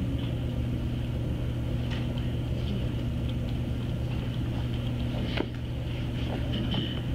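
Steady low room hum, with a few faint scattered clicks and a sharper click about five and a half seconds in.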